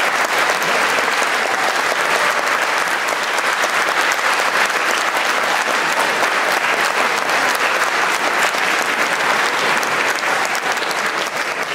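Audience applauding steadily: dense, even clapping from many hands.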